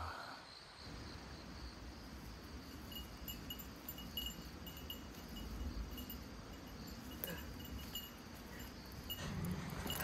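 Forest ambience: a steady low rumble with short, thin, high chirps repeating now and then, from small creatures in the woods.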